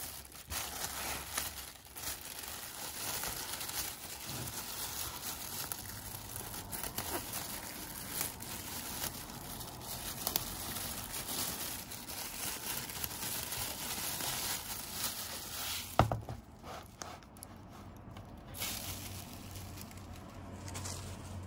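Thin plastic carrier bag crinkling and rustling as it is handled and pulled up off a potted cactus. A single sharp knock sounds about three-quarters of the way through.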